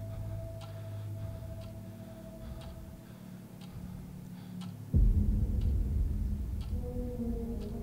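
Mantel clock ticking about once a second over a low, held ambient drone. About five seconds in, a sudden deep rumble comes in and carries on, and new held tones join it near the end.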